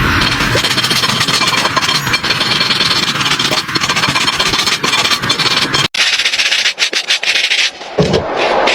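A horse's hoof being worked with farrier's tools, giving a steady rough scraping and rasping noise. It cuts out abruptly about six seconds in and resumes with a thinner texture.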